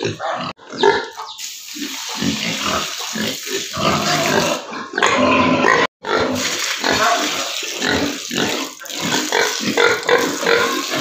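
Piglets grunting as they crowd a trough and eat wetted feed.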